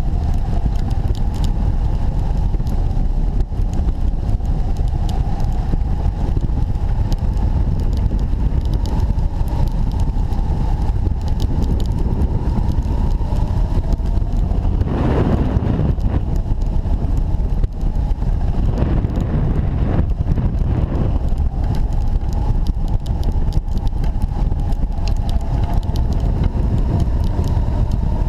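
Airflow buffeting a wing-mounted camera on a hang glider in flight: a loud, steady low rush of wind noise with a faint wavering whine behind it. About halfway through there is a stronger gust lasting a second or two.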